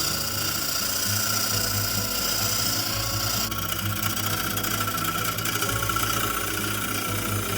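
Wood lathe running steadily, a motor hum with a hiss from the tool on the spinning oak that shifts abruptly about halfway through. Background music plays along.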